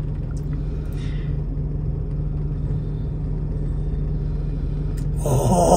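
Pickup truck's engine idling, a steady low rumble heard inside the cab.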